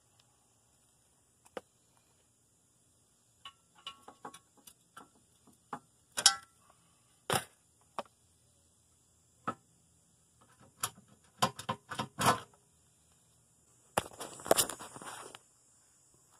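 Scattered clicks, taps and knocks of car-body parts and hand tools being handled, with a short rattling clatter near the end.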